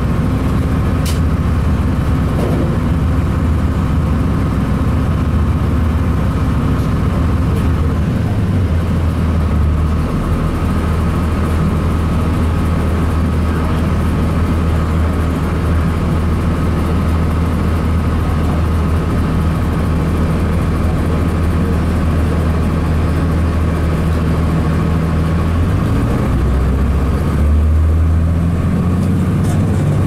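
2002 Blue Bird CS transit bus under way, heard from inside the cabin: its Cummins ISC inline-six diesel runs with a steady low drone through the Allison B400R automatic transmission. The drone's pitch shifts about eight seconds in and again near the end.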